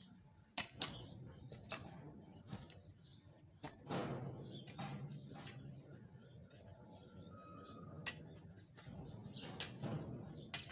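Irregular knocks and rough scraping of soil and plants from weeding by hand in a crop field, with birds chirping faintly.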